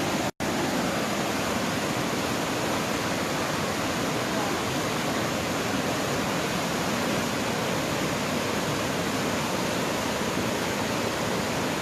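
Floodwater rushing steadily through a breached dike, a loud even wash of water noise with no breaks.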